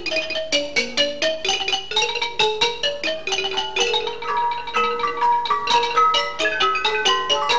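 Instrumental music played on mallet percussion such as a xylophone or marimba: quick melodic runs of short struck notes, several a second, with a bright, bell-like ring.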